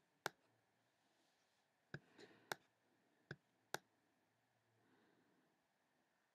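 Quiet, sharp clicks of a computer pointing-device button being pressed and released, five in about three and a half seconds, with a faint brushing sound of hand movement just after the second click.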